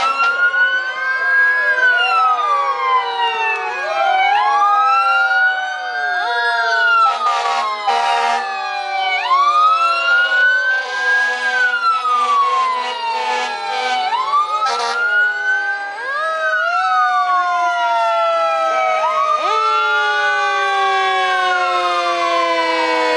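Fire engine sirens, several at once: one wails up and down about every three seconds while others slide slowly down in pitch. A few short noisy blasts break in between.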